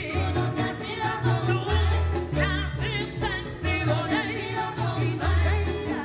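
Cuban son music: singing over a moving bass line.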